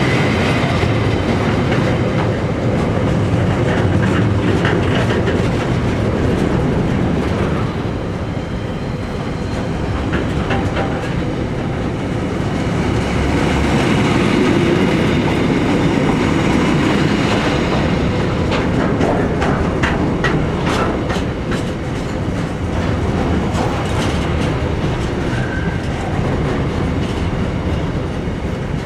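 Container freight train's loaded wagons rolling steadily past close by: a continuous rumble of wheels on rail, with scattered clicks as the wheels cross rail joints.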